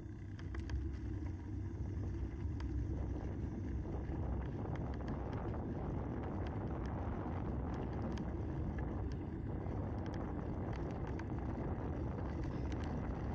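Wind rushing over the microphone while riding a bicycle, with a low rumble of tyres on rough, cracked asphalt and scattered small clicks and rattles. It gets louder over the first second or two, then holds steady.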